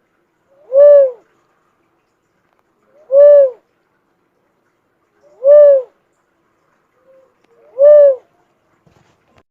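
A bird known locally as kobawon calls a single hoot four times at an even pace, one about every two and a half seconds. Each hoot is short, rising and then falling in pitch.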